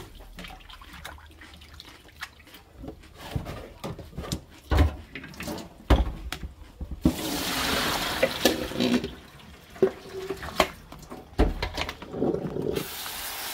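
Shredded potatoes being rinsed in a pot in a stainless-steel sink to wash off their starch: water splashing and sloshing, with scattered knocks and clicks as a plastic colander is handled. A stretch of running or pouring water comes about halfway through and again near the end.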